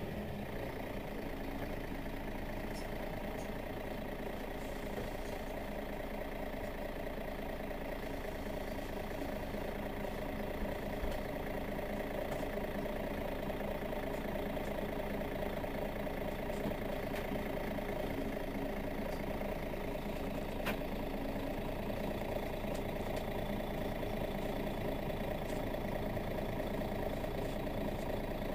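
Mercedes-Benz Citaro facelift city bus's engine idling steadily while the bus stands still.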